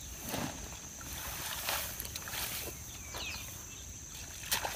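Soft rustling footsteps of rubber chest waders through wet grass and mud, a few scattered swishes, then a short sharp click near the end as he crouches at the puddle.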